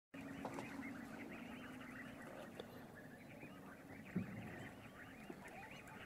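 Flock of birds calling together: a dense, continuous chatter of many short overlapping calls. A low steady hum sits under the first two seconds, and there is a single dull thump about four seconds in.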